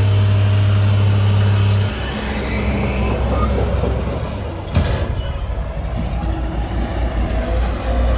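Heavy-equipment diesel engine running at high, steady revs, then dropping back about two seconds in to a lower, uneven rumble. A sharp knock comes about five seconds in.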